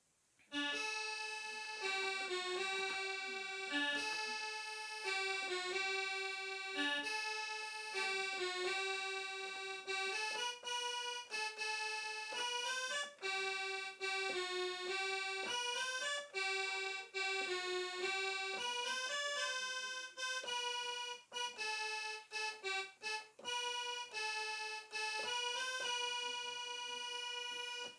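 Electronic keyboard playing a single-line melody, one held note at a time.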